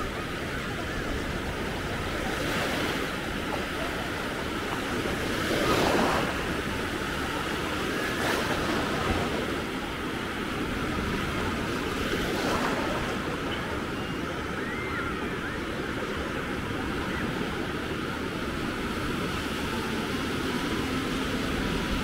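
Caspian Sea surf: small waves breaking and washing up a sandy beach in a steady rush, with louder surges about six seconds in and again around twelve seconds.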